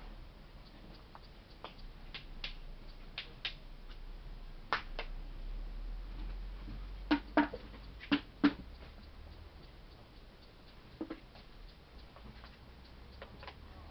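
Scattered faint clicks and ticks, with four sharper, louder knocks in quick succession a little past the middle.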